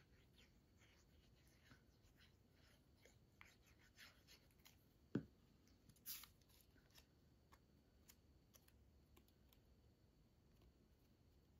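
Near silence with quiet handling of cardstock pieces: faint paper ticks and rustles, one thump about five seconds in, and a short papery rustle just after it.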